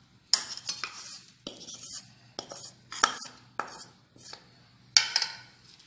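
Steel spoon scraping and tapping against a small plate and the rim of a steel bowl, knocking crushed pepper and cumin into the tamarind water: a string of sharp clinks and scrapes, roughly one every half second.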